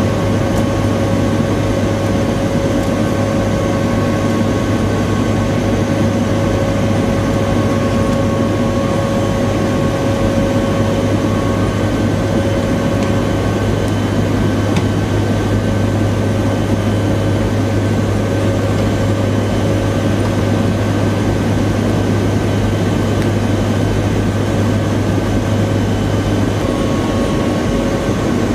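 Steady engine drone of a military aircraft heard inside its cabin: a constant low hum with several steady higher tones over a rushing noise. The low hum shifts slightly near the end.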